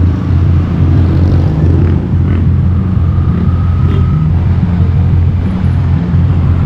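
Motorcycle riding along the road: a loud, steady low rumble of engine and road noise.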